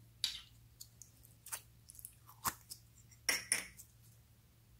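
Clear pink slime handled in the fingers and taken out of a small plastic cup: a few short squelches and clicks, the loudest pair about three seconds in.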